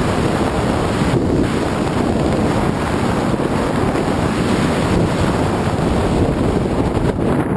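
Steady rush of wind buffeting a skydiver's camera microphone as he glides down under an open parachute canopy.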